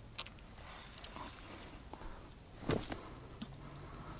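Handling noise in dry reeds: a few light clicks and rustles of reed stems as a fishing rod is laid down, with one louder rustling knock about two and a half seconds in.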